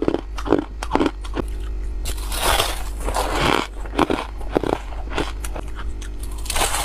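Squeaky ice being bitten and chewed close to the microphone: a string of sharp crunching bites, with a longer grinding crunch in the middle.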